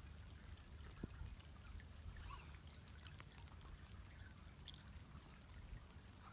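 Faint trickling water with a low, steady rumble and a few scattered faint ticks.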